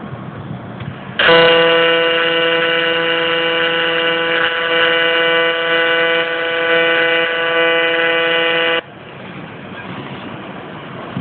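AC TIG welding arc on aluminium, a loud steady buzz that starts abruptly about a second in and cuts off sharply about seven seconds later.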